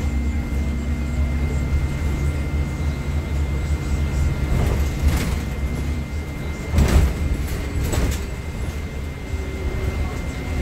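NovaBus LFS city bus heard from the front seat while driving: a steady engine and road rumble under a constant high whine. A few knocks and rattles come through the middle of it, the loudest about seven seconds in.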